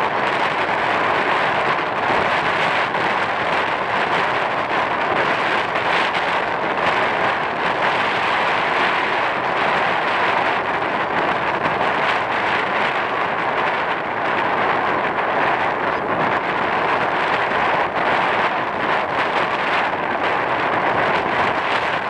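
Steady rushing noise of wind and surf at the seashore, with a faint steady high tone under it and no distinct bird calls.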